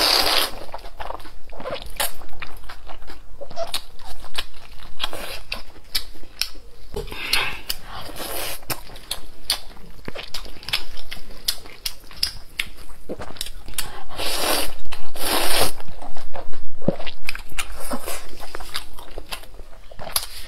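Close-miked mukbang eating: a person slurping wide noodles and chewing, with many small wet clicks and smacks. Several longer slurps come at the start, around a third of the way in, and loudest about two-thirds of the way through.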